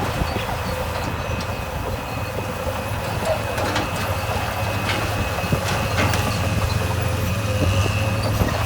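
Heavy earthmoving machine's diesel engine running steadily, with scattered metallic clicks and clanks over it.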